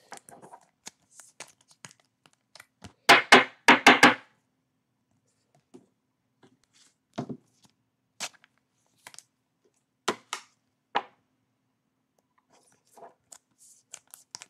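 Trading cards and pack wrappers being handled on a table: scattered sharp taps and short tearing and crinkling rustles, with a louder cluster about three seconds in.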